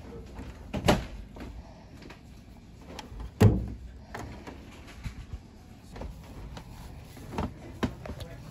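Steel card-catalog drawers being pulled open and pushed shut by hand, with a few sharp metal clunks. The loudest clunk comes about three and a half seconds in, and two more come close together near the end.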